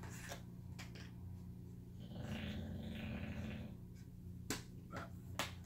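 Discs being put back into a multi-disc case: handling rustle and a few sharp plastic clicks, the last three close together near the end as the discs snap onto the hubs. A low steady hum runs underneath.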